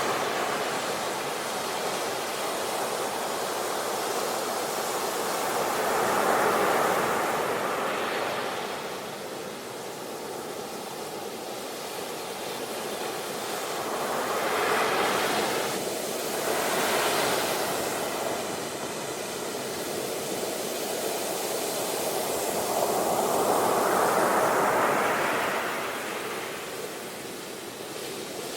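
Ocean surf: waves breaking and washing back in a steady hiss, swelling about four times and fading between them.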